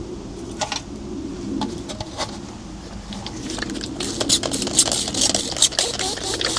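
Scattered clicks and scrapes over a steady low hum, turning into a dense crackling run of clicks and scraping about three and a half seconds in.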